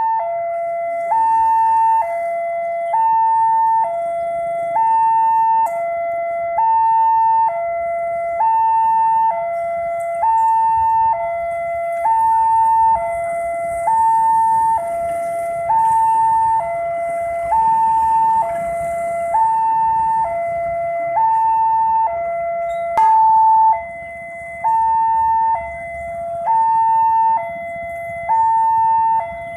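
Railway level-crossing warning alarm sounding while the barriers are down for an approaching train: an electronic two-tone chime alternating high and low, about one tone a second. The chime gets somewhat quieter from about two-thirds of the way through.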